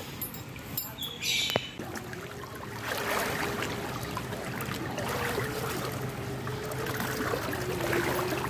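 Fast-flowing floodwater rushing, a steady hiss that swells about three seconds in, with a faint steady hum underneath. A few sharp clicks and a short high squeak come in the first two seconds.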